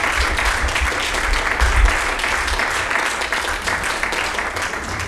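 Congregation applauding: a dense clatter of hand claps, with low thumps underneath during the first two seconds.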